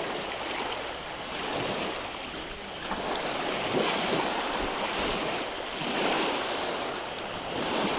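A steady rush of wind and water, swelling and easing every couple of seconds.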